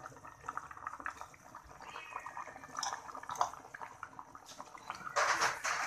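A pot of fish broth bubbling at the boil, with small pops and liquid sloshing as a utensil works in it. A brief, louder rush of noise comes near the end.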